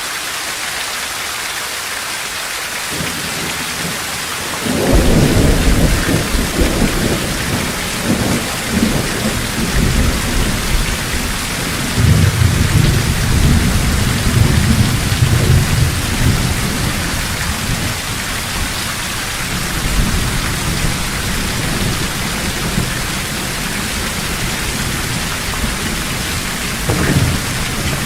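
Steady heavy rain hissing. About five seconds in, thunder breaks in suddenly and rolls on as a long, deep rumble that swells again in the middle. A further roll comes near the end.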